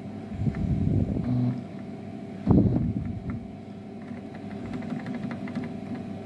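Emco Compact 5 CNC lathe's stepper motors driving the carriage and cross slide back to the zero position: a steady motor hum that swells louder near the start and again about two and a half seconds in, with a few faint clicks.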